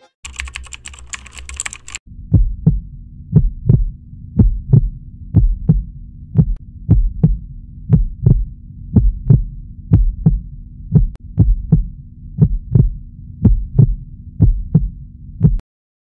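Heartbeat sound effect: paired low thumps about once a second over a steady low drone. It starts about two seconds in after a short burst of rapid crackling clicks, and cuts off suddenly near the end.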